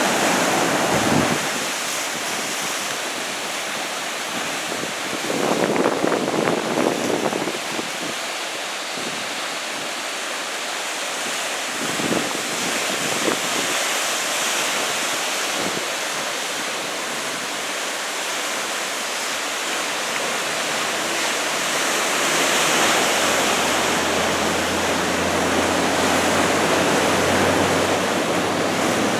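Ocean surf from a roughly 2 m typhoon swell breaking and washing in, a steady rushing noise that swells louder about six seconds in and again near the end.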